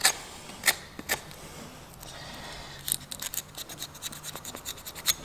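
Hoof knife cutting away hardened hoof-cast material at the heel of a horse's hoof: a few sharp snicks in the first second or so, then a quick run of short scraping cuts over the last two seconds.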